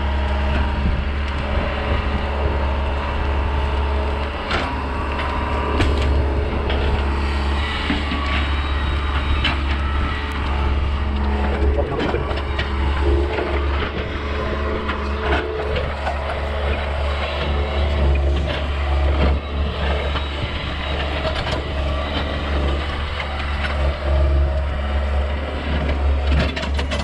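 John Deere trackhoe's diesel engine running steadily, with scattered sharp cracks and snaps over it.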